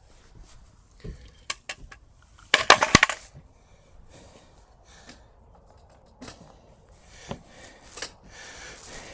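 Metal clanks and rattles as an electric bike is lowered off its stand, the loudest a clattering clang with a short ring about two and a half seconds in, among scattered smaller clicks and knocks.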